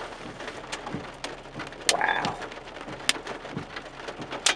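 Steady rain falling, with three sharp taps of drops striking close by and a brief higher-pitched sound about two seconds in.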